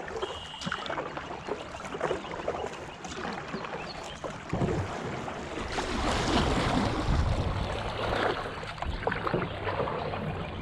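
Kayak paddle strokes dipping into flat water with splashes and drips off the blade, the hull moving through the water. Wind buffets the microphone, growing louder about halfway through.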